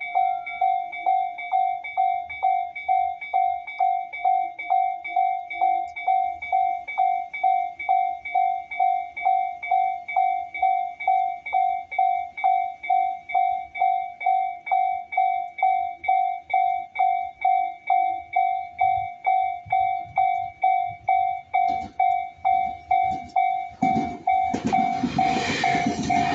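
Japanese railway level-crossing alarm ringing its electronic bell tone steadily, about two strikes a second. Near the end a two-car Tobu 10050-series train comes up to the crossing, its running noise rising under the bell.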